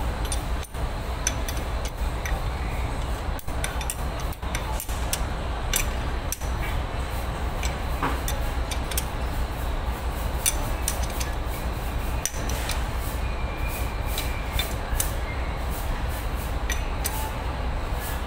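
Small irregular metallic clicks and clinks of a wrench working the mounting bolts and metal parts while an air compressor is fitted to a diesel engine block, over a steady low hum.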